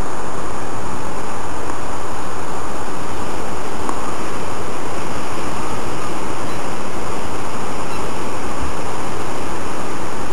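Steady, loud rush of sea surf and wind, with wind buffeting the microphone.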